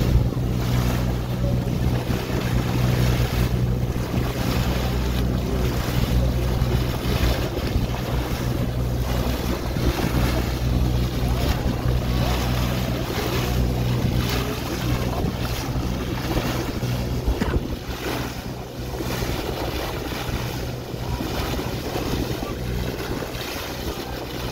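A boat's engine running steadily under way, a constant hum, under the rush of water along the hull and wind on the microphone.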